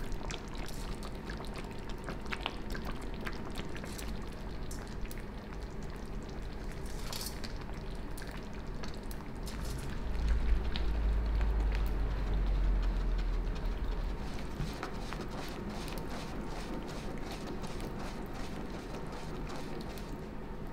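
Meat and mushroom stew simmering in a stainless-steel casserole, with a steady stream of small bubbling pops. About halfway through a louder low rumble comes in for a few seconds as the casserole is shaken back and forth on the hob to stir the sauce.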